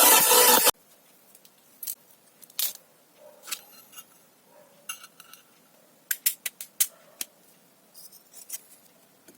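Music cuts off abruptly under a second in. What follows is a scattering of short, sharp clicks and snips from small hand work on a loudspeaker, with a quick run of them about six to seven seconds in.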